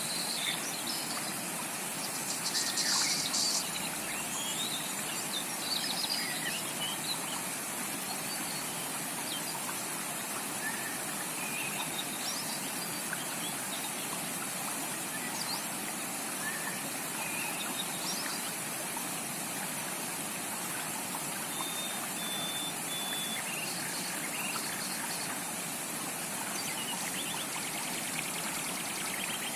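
A creek running steadily, with scattered bird chirps and calls over it. A brief rapid trill sounds about three seconds in, and a few short high whistled notes about two-thirds of the way through.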